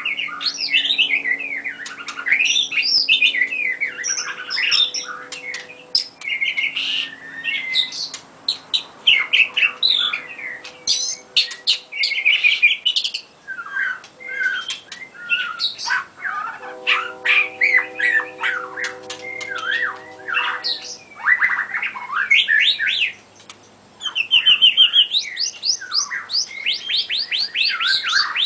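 White-rumped shama singing a long, varied song of whistles, chirps and harsh notes, ending in a fast run of repeated sweeping notes.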